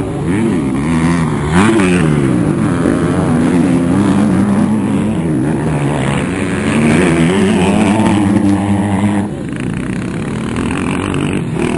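Several motocross dirt bikes racing, their engines revving with pitch repeatedly climbing and dropping as riders accelerate and shift. Somewhat quieter for the last couple of seconds.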